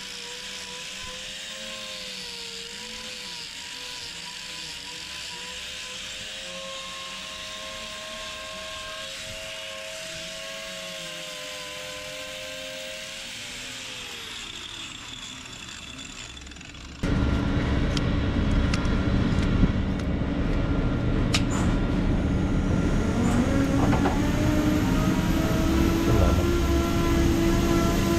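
Angle grinder with a grinding disc working a cow's hoof sole, a steady whine that wavers in pitch as the disc bites the horn, then winds down about halfway through. A few seconds later a much louder steady mechanical rumble starts suddenly and carries on.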